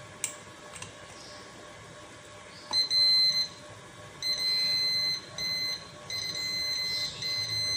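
Multimeter continuity beeper sounding a high, steady tone in five broken beeps of half a second to a second each, signalling a closed circuit as the probes touch the contacts of an electric kettle's power base. A couple of light clicks come before the first beep.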